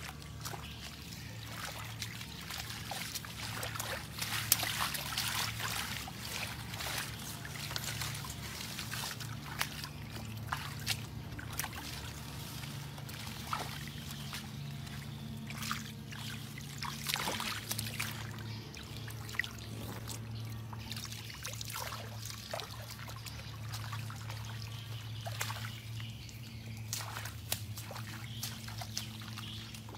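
Shallow water splashing and trickling as someone wades and gropes through flooded grass and plants, in many short irregular splashes, over a steady low hum.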